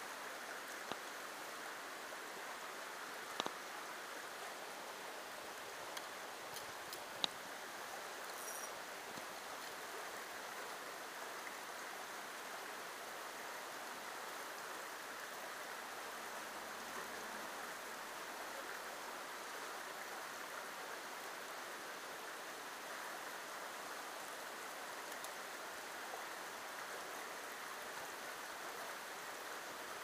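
Shallow creek water running over rocks in a riffle, a steady rushing flow. A few sharp clicks stand out in the first eight seconds or so.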